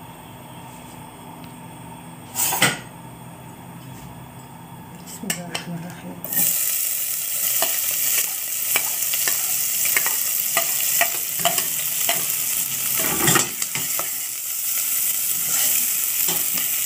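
Chopped onion tipped into hot oil in a stainless steel pot, sizzling loudly from about six seconds in, with a metal spoon clinking and scraping against the pot as it is stirred. Before the onion goes in there is only a low background hum and a single knock about two seconds in.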